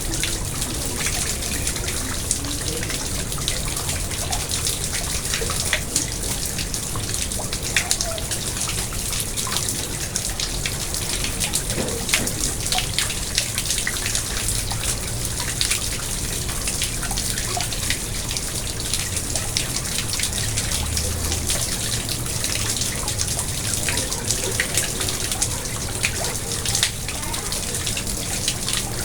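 Water from a garden pond trickling and splashing steadily, with many small drips and plops.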